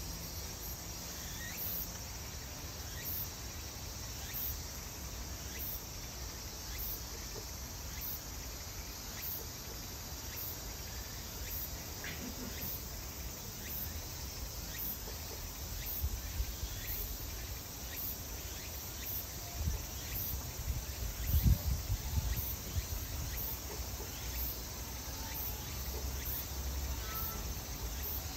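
Insects chirping steadily, with a very high chirp repeating about once a second. A few low thumps stand out about three quarters of the way through.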